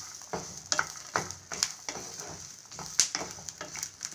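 Wooden spatula stirring and scraping dry-roasting groundnuts, coriander seeds and grated coconut around a nonstick pan with no oil, in irregular strokes about two a second.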